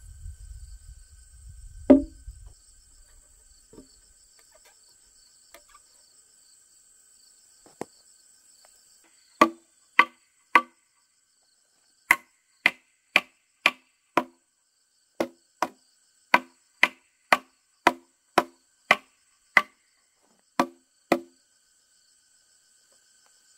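A tool knocking repeatedly on a squared wooden post, seating it into the mortise of a log base. There is one knock early, then, from about nine seconds in, some nineteen sharp wooden knocks in short runs of roughly two a second. A steady insect trill sits behind.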